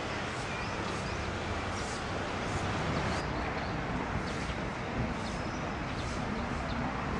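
Outdoor city-park ambience: a steady rush of distant traffic, with short high bird chirps scattered throughout.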